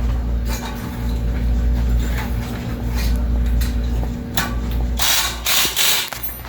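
Ratcheting mechanical clicks from repair work on a bicycle's disc brake rotor, over a steady low hum. About five seconds in comes a short, loud hiss-like noise.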